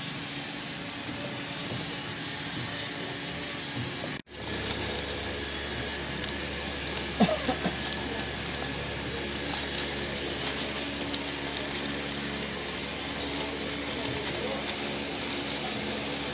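Steady running noise of a shrink wrapping machine's blower and conveyor, with small crinkling clicks of shrink film as a wrapped cup is handled. The sound drops out briefly about four seconds in, and a low hum is steadier after that.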